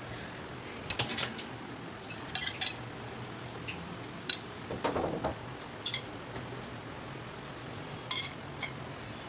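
A metal spoon clinks and taps against glass bowls and a glass dish as chopped jelly is scooped out and spread over a trifle. The clinks come at scattered moments, with a short scraping rustle near the middle.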